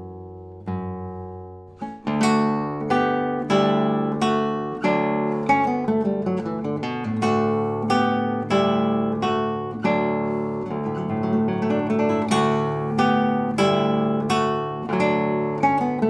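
Solo classical guitar with nylon strings, fingerpicked. A few sparse notes ring out and fade, then from about two seconds in an even, flowing pattern of plucked notes runs over held bass notes.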